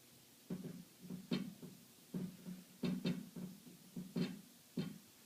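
Plucked guitar notes, about ten single sharp notes in an uneven rhythm, each ringing briefly.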